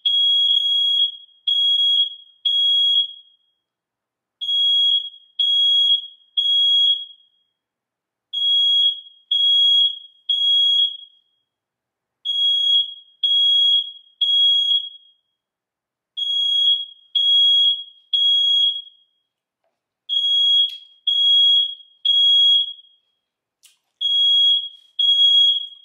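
Apartment fire alarm sounding: a high-pitched beep in groups of three, the group repeating about every four seconds, the three-beep evacuation pattern.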